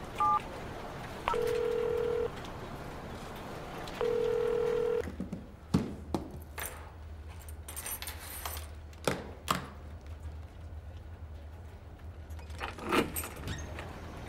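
A mobile phone's last keypad tone, then the ringing tone of the outgoing call sounding twice, each a steady one-second beep, as the call rings through. After that, a low hum with scattered clicks and knocks.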